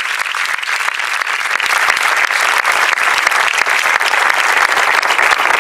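A crowd applauding steadily, with sharp individual claps from hands close by.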